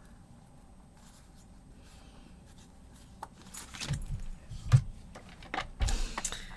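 Paper and craft tools being handled on a work table: faint room tone at first, then rustling, rubbing and clicks from about halfway in, with one sharp knock.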